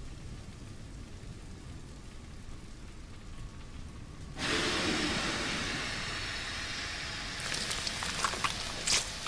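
Anime sound effects of the Colossal Titan's body steaming: a low rumble, then about four and a half seconds in a sudden loud rush of hissing, with a few sharp crackles near the end.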